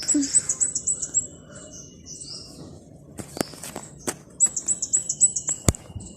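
Small birds calling: a quick high trill of rapid repeated notes lasting about a second near the start and again a little after four seconds in, with scattered chirps between. A few sharp taps sound in the second half.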